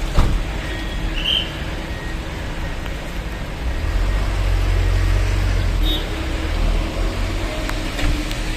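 Road traffic passing on a highway, with a heavier vehicle's low rumble swelling up about halfway through and fading. A single sharp knock sounds just at the start.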